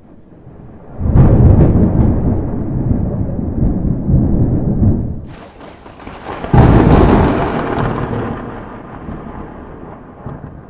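Thunder: a loud clap about a second in that rumbles for several seconds, then a sharp crack and a second loud clap past the middle that rolls and fades. It cuts off suddenly at the end.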